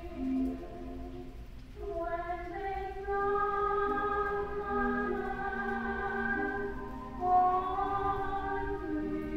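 Music: a choir singing slow, held notes in harmony, growing louder about three seconds in.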